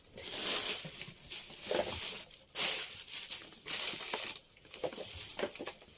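Plastic crinkling and rustling close to the microphone as parts are handled during assembly, in irregular bursts with a few small knocks.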